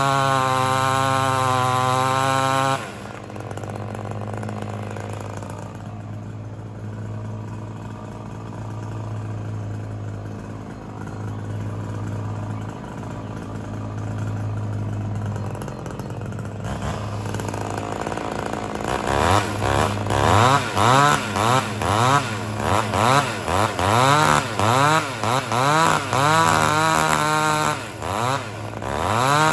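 Ported 58 cc two-stroke chainsaw with a 28-inch bar, held at full throttle for about the first three seconds, then dropping to a steady idle. From about two-thirds of the way in it is blipped over and over, revving up and falling back about once a second, quicker near the end.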